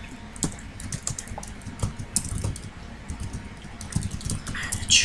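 Typing on a computer keyboard: quick, irregular keystrokes, with one louder keystroke near the end.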